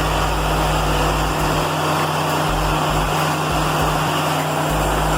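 Baker Products 3665D hydraulic sawmill running: a steady machine hum with even, broad mechanical noise.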